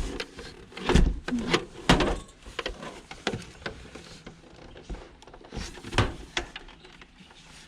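Plastic set-top box being handled and turned over: a string of irregular knocks, clunks and scrapes, the heaviest about a second in, two seconds in and six seconds in.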